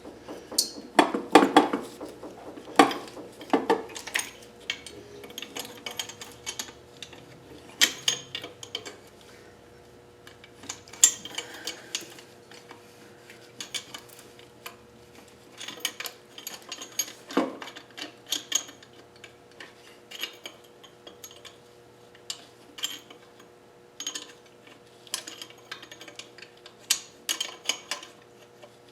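Metal hand tools clicking and clinking irregularly against engine fittings as a wrench is worked on bolts. A faint steady hum runs underneath from a few seconds in.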